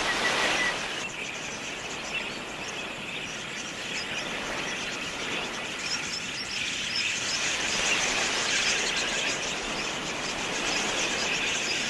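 A flock of wild budgerigars chattering: a dense, continuous mass of short, high chirps over a steady hiss, a little louder in the first second.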